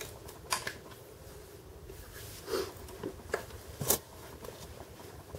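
Handling noise: a few short clicks and rustles over a low room hum as the camera is picked up and moved; the sharpest click comes about four seconds in.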